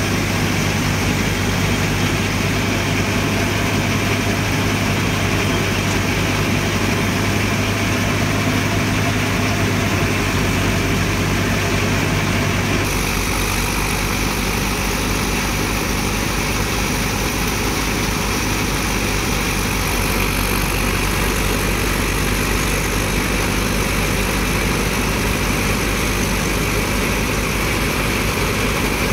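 Mahindra Yuvo Tech+ 575 DI tractor's diesel engine running steadily at the modest rpm used for threshing, driving a thresher. About thirteen seconds in, the tone changes abruptly.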